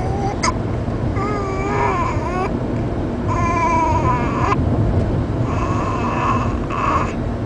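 A drowsy baby whimpering in three drawn-out, wavering cries of about a second each, fussing while still troubled by hiccups. There is a short sharp click about half a second in, and a steady low rumble underneath.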